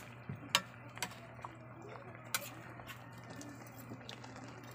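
Pot of shrimp and pechay simmering in coconut milk, with a low steady hum under it and a handful of sharp ticks in the first half.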